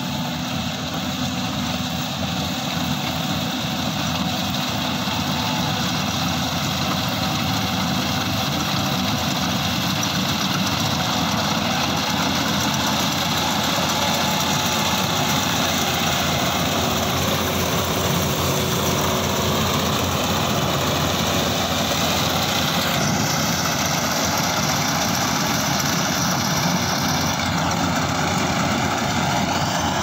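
Tracked rice combine harvester running while harvesting: a steady engine and machinery drone that grows a little louder as the machine comes closer.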